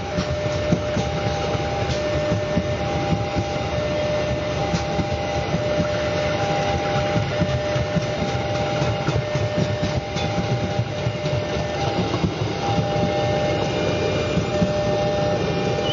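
Passenger train coaches rolling past on the tracks with a continuous rumble and wheel clatter. Over it a level-crossing warning alarm sounds a steady two-tone signal, the upper note cutting in and out.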